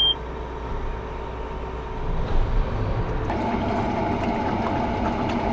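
Combine harvester running steadily, heard from inside the cab as a low mechanical hum. About three seconds in, a second, higher hum joins and stays on.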